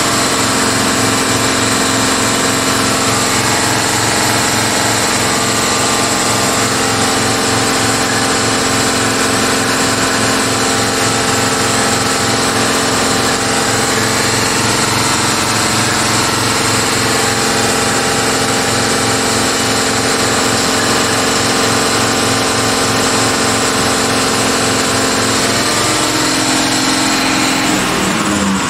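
Truck diesel engine idling steadily, heard from inside the cab, with an even throb; its pitch shifts slightly near the end.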